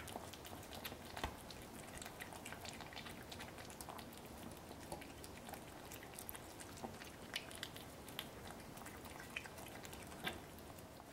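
Two kittens eating tuna from a saucer: faint, scattered wet clicks and smacks of chewing and lapping, with a sharper click about a second in and another near the end.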